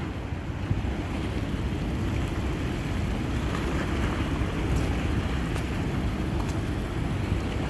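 Steady wind noise on the microphone, heavy in the low end, over harbour water washing against a concrete seawall.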